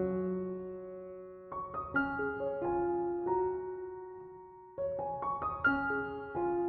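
Background music: soft piano, short phrases of notes struck and left to ring and fade, a new phrase starting about a second and a half in and again near five seconds.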